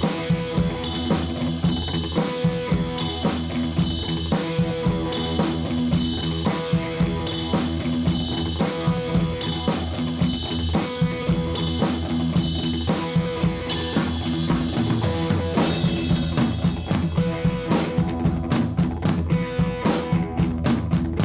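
Background rock music with a steady drum beat and guitar.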